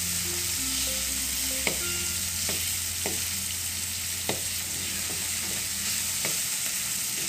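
Diced tomato, onion and bay leaves sizzling in a non-stick wok while a wooden spatula stirs them. The spatula clicks against the pan about once a second.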